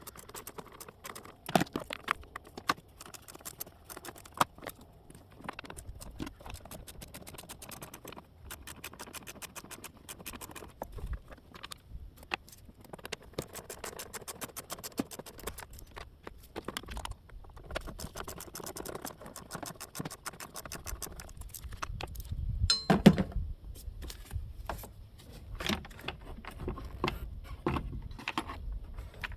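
Socket ratchet clicking in quick runs as bolts are loosened, with metallic clinks and rattles of tools and parts, and one louder knock about three-quarters of the way through.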